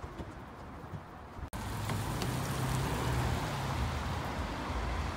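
Steady outdoor traffic rumble in a car park, which starts abruptly about a second and a half in after a quieter stretch.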